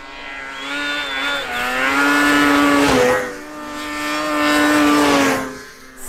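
Two racing snowmachines speed close past one after the other at high revs. Each engine grows louder as it nears and drops in pitch as it goes by.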